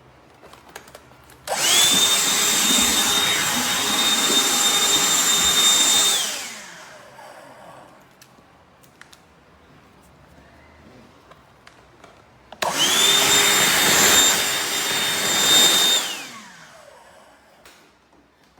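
Black+Decker Dustbuster cordless handheld vacuum switched on twice, running about four seconds and then about three and a half seconds. Each run has a steady high whine over rushing air and winds down with a falling pitch after switch-off.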